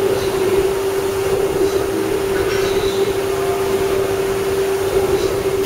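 FK-103ATC-A-DH CNC router running, with a steady high whine over a continuous mechanical hum.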